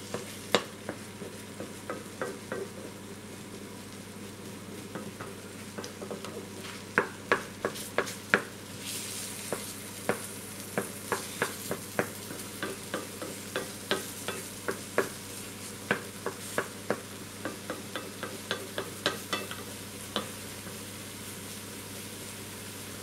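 Omelette mixture of egg, milk, mushrooms and onion sizzling steadily in a frying pan as it begins to set, while a wooden spoon stirs it, knocking and scraping against the pan in sharp clicks that come thick and fast from about six seconds in.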